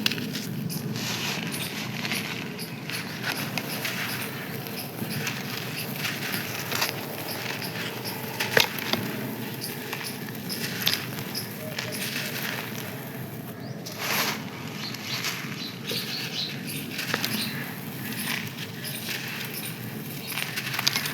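Crispy dried sand crunching and crumbling, a steady crackling with sharp snaps of breaking pieces, loudest about eight and a half and fourteen seconds in.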